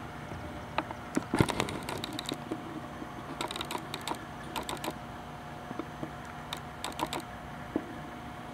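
Irregular small clusters of sharp clicks, over a steady faint hum and background noise.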